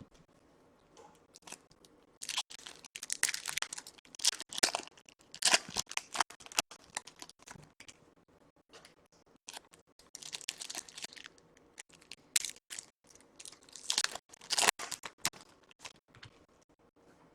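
Trading-card packs being opened and handled: crinkling, tearing wrappers and cards rustling and clicking against each other, in irregular bursts with short quiet gaps.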